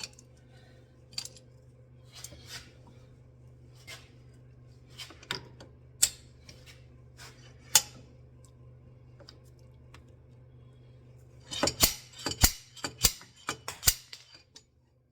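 Homemade slide hammer worked against the inner CV axle joint to pop it out of the transmission: scattered light metal clicks and clinks, then about eight sharp metal-on-metal knocks in quick succession near the end.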